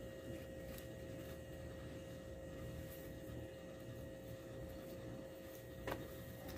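Quiet, steady room hum with a faint constant tone, from a wall-mounted split air conditioner running; a single soft click near the end.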